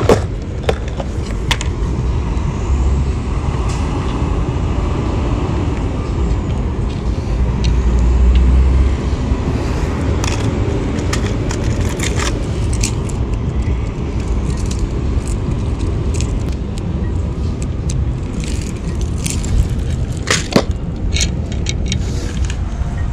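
Wind rumbling on the microphone, with scattered sharp clicks and rattles from a clear plastic tackle box being handled and hard lures picked out of it, a cluster of them about halfway through and again near the end.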